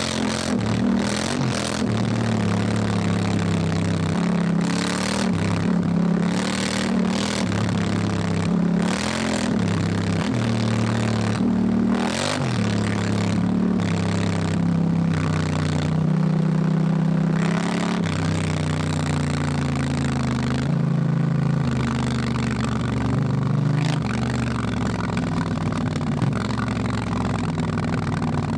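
Honda Africa Twin motorcycle's parallel-twin engine under way, its pitch rising and falling again and again with throttle and gear changes. Short bursts of broad rushing noise come through over the engine.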